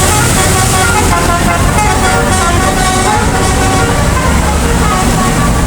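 Bus 'basuri'-style telolet musical air horn playing a quick melody of short stepped notes, over the low running of the bus engine.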